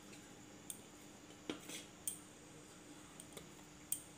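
Faint, light clicks and taps of a few scattered strikes as raw dumplings are set by hand onto an oiled stainless-steel perforated colander inside a pot.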